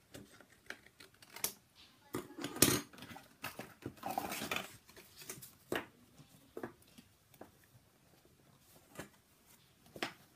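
A sheet of paper being cut with scissors: irregular snips and paper rustles, the loudest snip about two and a half seconds in and a longer rustle about four seconds in.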